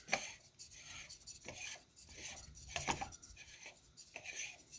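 Small clicks and short rubbing scrapes of hard parts being handled, as a camera is fitted and snugged onto a telescope's field flattener.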